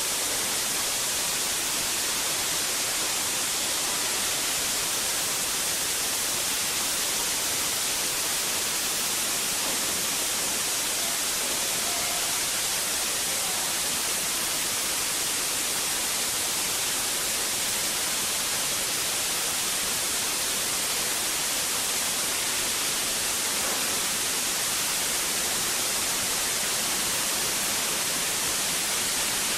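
Large diesel fuel fire in a mock ship's engine room, fed by pressurized diesel spraying from the piping: a loud, steady hiss that does not change.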